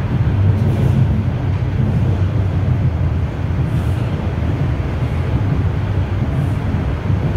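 Toronto Rocket subway train running through a tunnel, heard from inside the car: a steady low rumble of wheels on rails.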